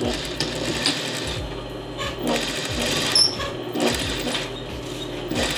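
Industrial sewing machine stitching along narrow fabric strips, a fast continuous run of needle strokes.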